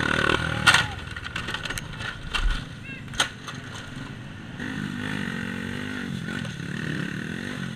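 Indistinct voices over a running motorcycle engine, with scattered sharp clicks and knocks, the loudest near the start and another about three seconds in.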